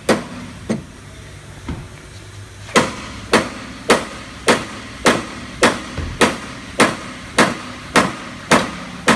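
Hammer blows driving a new subframe bushing into a Nissan 240SX (S13) subframe: a few scattered strikes, then a steady run of about a dozen even blows, nearly two a second.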